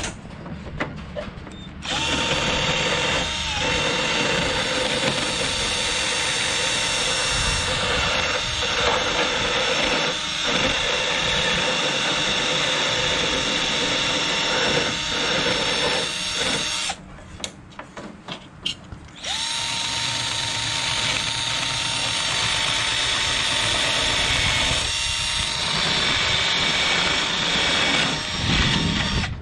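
Power drill running steadily for about fifteen seconds, stopping briefly, then running again for about ten seconds. It is being used to clean up dirty ground connections on a car.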